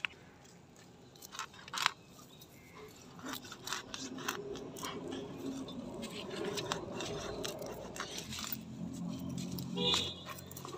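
Scales being scraped off a hybrid tilapia with a blade: a series of short, scratchy scrapes and clicks. Low voices talk in the background in the second half.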